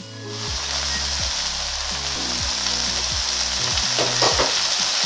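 Shredded cabbage, carrot and sausage sizzling in a hot pot as the lid comes off: a steady frying hiss sets in about a quarter-second in and holds. The cabbage has started to fry on the bottom of the pot.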